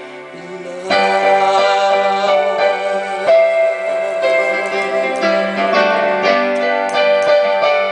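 Keyboard playing the instrumental ending of a slow love ballad: after a quiet first second, a full chord comes in, followed by held chords and single melody notes.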